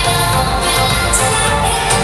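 Loud dance music with a steady beat.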